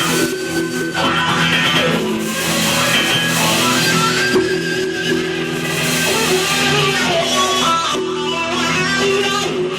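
Amplified guitars playing together: sustained, ringing chords and notes, loud and continuous.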